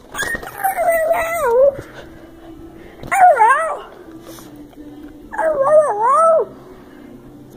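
A dog howling in three drawn-out calls, each wavering up and down in pitch, with short pauses between them.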